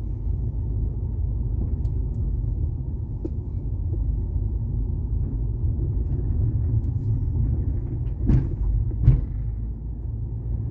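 Car driving slowly on a gravel road, heard from inside the cabin: a steady low rumble of engine and tyres on gravel. Two sharp knocks about a second apart near the end.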